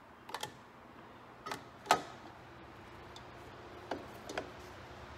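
Parts of a SeaStar tilt hydraulic steering helm clicking and knocking as they are fitted together by hand: a handful of short, sharp clicks, the loudest about two seconds in.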